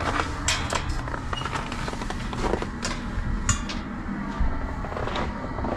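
Scattered sharp clicks and knocks over a steady low rumble.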